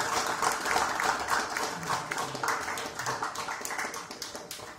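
A small group of people applauding by hand, dense clapping that thins out and fades away near the end.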